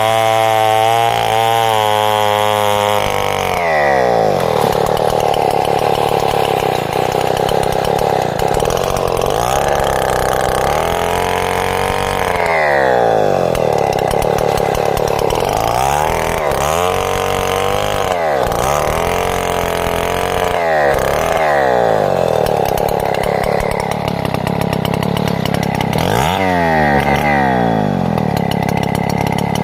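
Two-stroke chainsaw sawing timber lengthwise into boards. It runs at high revs for about three seconds, then its engine speed dips and climbs back several times as it works through the cut.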